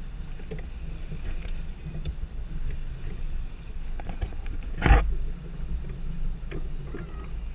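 A boat engine runs low and steady under faint wind and small clicks. About five seconds in there is a single loud thump.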